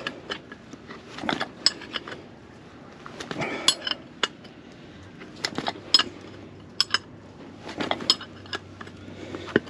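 Metal hand tools clinking and clanking against brake caliper hardware in irregular sharp hits, with short scrapes between them, as a seized caliper slide pin is worked on.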